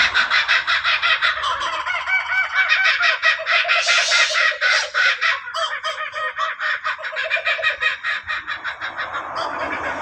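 Laughing kookaburras calling in chorus: a fast run of repeated laughing notes that rise and fall, with a louder harsh note about four seconds in.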